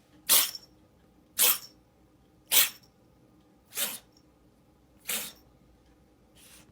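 Cat sneezing over and over in a fit, six sharp sneezes about a second apart, the last ones fainter.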